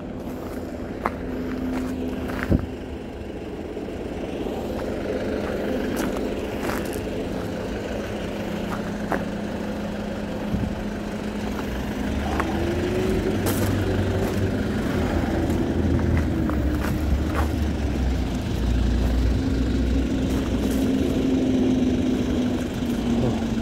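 A vehicle engine running steadily, with a few clicks in the first seconds. About halfway through it gets louder, and its pitch rises and falls.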